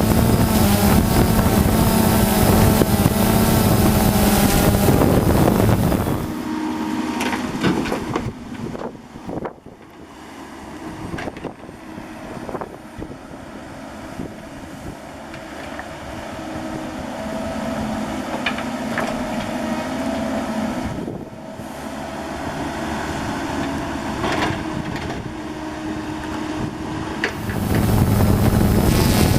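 Diesel engine of heavy digging equipment running: loud at first, then much quieter from about six seconds in, with scattered clanks and knocks, and loud again near the end.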